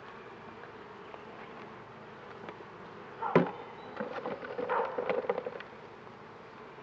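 Honeybees buzzing steadily around an open hive. About three seconds in there is one sharp knock, followed by a run of light clicks and scrapes from hive equipment being handled.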